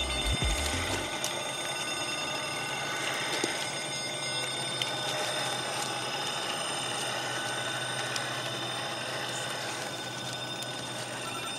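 Electric RC rock crawler's motor and gears whining steadily as it crawls, with a few low thumps in the first second.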